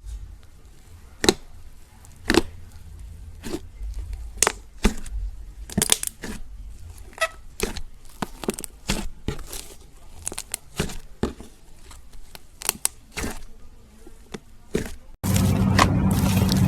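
Slime being squeezed and worked by hand, giving irregular sharp pops and clicks as trapped air bursts. About a second and a half before the end it cuts abruptly to a louder, steady hum and hiss.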